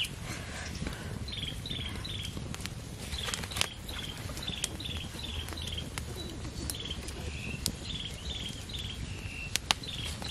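Wood fire crackling under fish on a bamboo grill rack, with scattered sharp pops, two of them loud. A high chirping call repeats about twice a second in the background.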